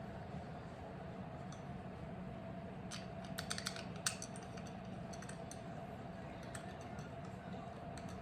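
A quick run of light clicks and taps, about three to four seconds in, from small metal parts being handled, over a steady background hum.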